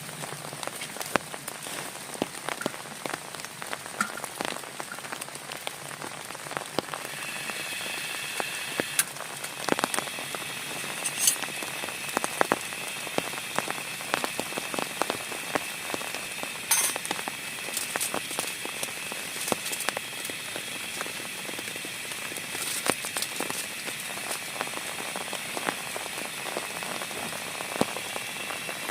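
Heavy rain falling: a steady hiss scattered with many sharp individual drop hits. About seven seconds in, the hiss becomes brighter and fuller.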